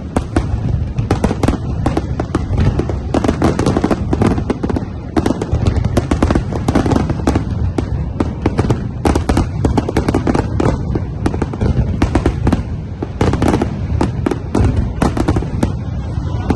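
Fireworks display: a dense, continuous barrage of bangs and crackles, many a second without a break, over a heavy low boom.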